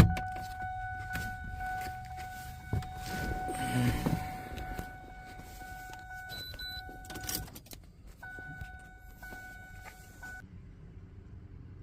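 A steady electronic warning chime from the car, with clicks, knocks and rattling of handling over it. The chime stops about seven seconds in, comes back for about two seconds, then stops.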